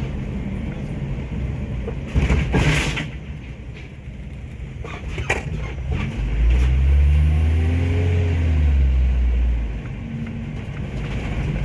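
Car engine and road noise heard from inside a moving car, with a loud rushing noise about two seconds in and the engine pulling harder, rising in pitch, about halfway through.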